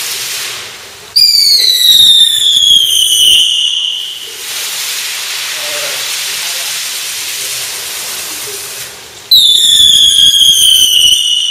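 Firework spark fountains hissing steadily, with two loud pyrotechnic whistles, one about a second in and one near the end. Each whistle lasts about two seconds and falls in pitch.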